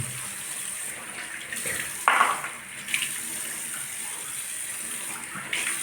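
Water running steadily from a tap into a sink, with a brief louder splash or knock about two seconds in.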